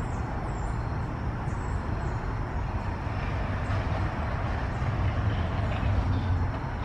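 Steady low outdoor background rumble with no distinct events, and a few faint high chirps near the start.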